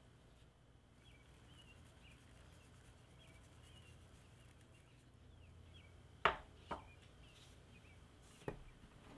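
Three sharp knocks or taps, two close together about six seconds in and a third near the end, over a faint steady background with small high chirps repeating throughout.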